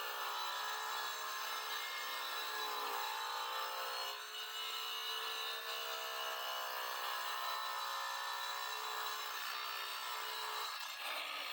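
DeWalt DWE490 9-inch angle grinder with a diamond disc cutting into wood, its motor whine wavering and dipping in pitch under load, most clearly around three and four seconds in. A diamond disc is not made for wood, so it cuts slowly and with effort.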